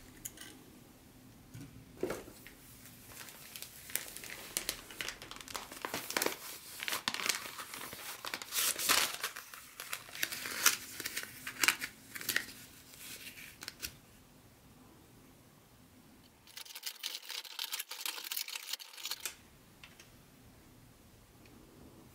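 Paper packing material crinkling and rustling as it is unwrapped by hand, in dense bursts with a few sharp clicks, then a pause and a shorter burst of rustling about three-quarters of the way through.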